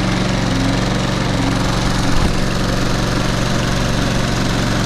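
Toro Super Recycler (model 20092) walk-behind mower engine running steadily on a cold start, just after catching on the first pull.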